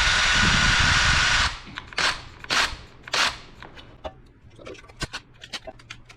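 Power drill with a 1/8-inch bit running steadily while drilling out an ashtray's factory rivets, stopping about a second and a half in. Then three short loud bursts of noise, followed by scattered faint clicks and taps.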